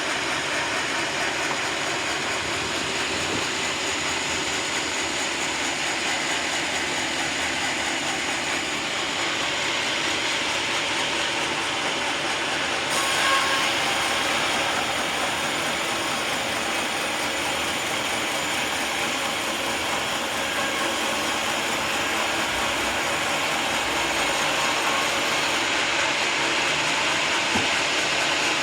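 Sawmill running and sawing a teak log: a steady, dense mechanical noise with no letup. About halfway through, the sound turns brighter and harsher, then eases back near the end.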